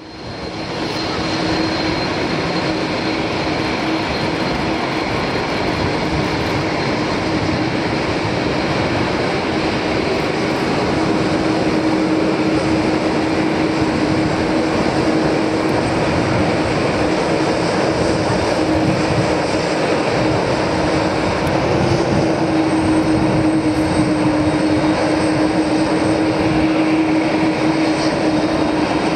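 Airbus A310-308F freighter's General Electric CF6-80C2 turbofans at taxi power as the jet rolls past: a steady rush of engine noise with a held low hum and a thin high whine, rising in from quiet over the first second or so.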